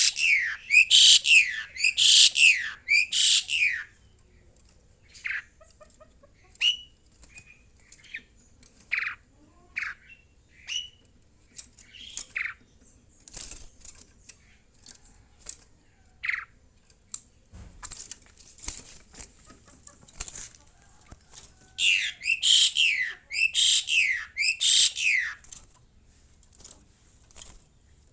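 Asian pied starling screaming: two loud bouts of harsh, rapidly repeated calls, one at the start and one near the end, with scattered shorter calls and clicks between. These are its hunger calls, given when its cricket feed comes late.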